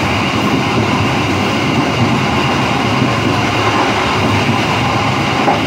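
Train running at speed, heard from on board: a steady rumble and rush of the wheels on the track.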